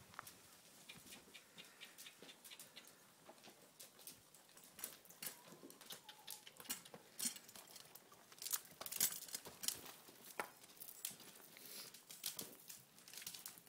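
A colt walking on the soft dirt footing of an arena: faint, irregular soft hoof falls mixed with small clicks, busiest a little past the middle.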